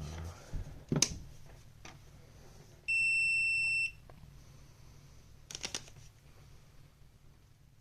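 One steady, high electronic beep lasting about a second, about three seconds in. A sharp click comes about a second in, and a short rattle of clicks about five and a half seconds in.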